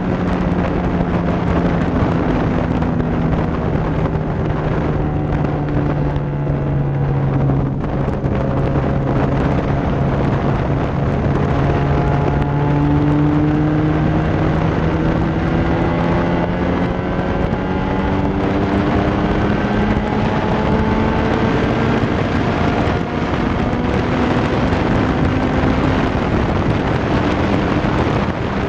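Car engine running under way, its pitch sinking over the first several seconds, then climbing slowly through the rest as the revs build, over steady wind rush on a camera mounted outside the driver's window.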